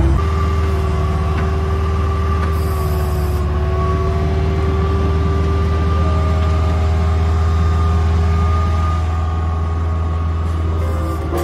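Bobcat 743B skid steer's diesel engine running steadily, with a steady high whine above the engine note.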